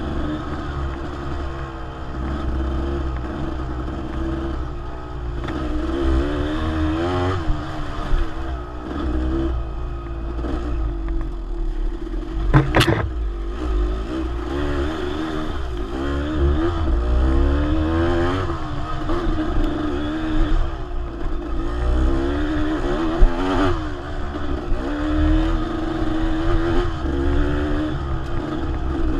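Dirt bike engine running under way, its pitch rising and falling again and again with the throttle, over a low rumble. There is a sharp knock about thirteen seconds in.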